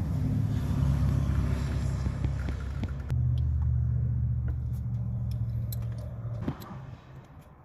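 1976 Datsun 280Z's inline-six engine running steadily, then switched off about six and a half seconds in, with a few light metallic clicks and jingles like keys.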